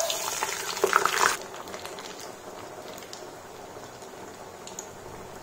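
Breadcrumb-coated cutlet deep-frying in hot coconut oil: a loud crackling sizzle for about the first second and a half as it goes in, then settling to a steadier, quieter sizzle.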